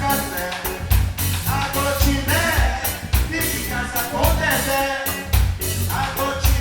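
Live band playing an afro-bloco style song, with a steady drum beat under a sung melody.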